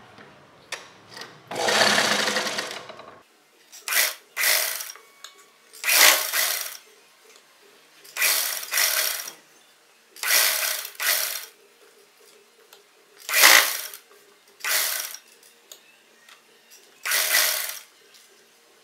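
Domestic sewing machine stitching a seam in stop-start runs. There is one longer run about two seconds in, then about ten short bursts of a few stitches each, mostly in pairs, with pauses between them.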